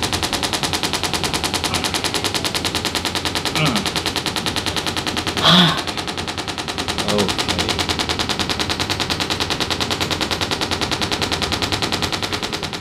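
Percussion massage gun hammering steadily in rapid, even pulses on a patient's muscles, stopping at the very end.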